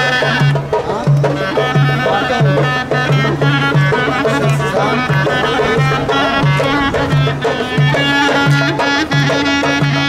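Lively folk-style dance music from a band: a repeating bass note pulses under drum beats and a bright melody with many voices.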